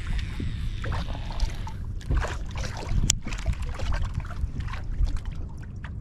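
Wind buffeting the microphone on an open fishing boat, with water slapping against the hull and a sharp click about three seconds in.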